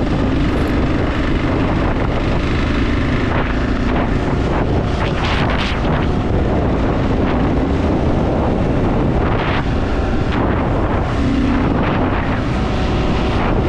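Motorcycle riding at steady highway speed: wind rushing over the microphone, with the engine running underneath.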